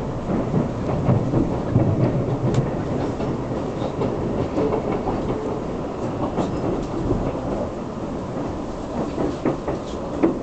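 Keisei Skyliner train running, heard from inside the passenger cabin: a steady low rumble with scattered clicks of the wheels over rail joints and points.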